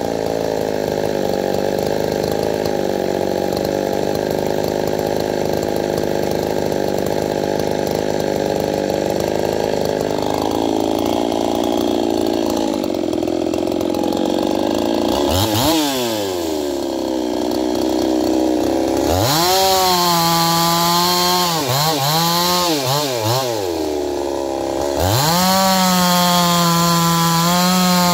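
Two-stroke Stihl-clone chainsaw idling steadily, blipped once about halfway, then run up to full throttle twice, the second time after a short drop back to idle. At full throttle the pitch wavers and dips as the chain cuts into a log.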